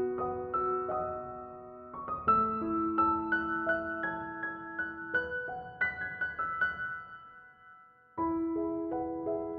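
Slow, gentle piano background music playing single sustained notes. It fades away near the end, then a new piano passage starts abruptly.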